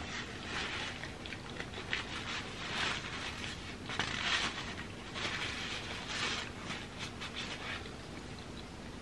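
Close-miked chewing of a mouthful of food, with mouth and smacking sounds in irregular bursts that die away near the end.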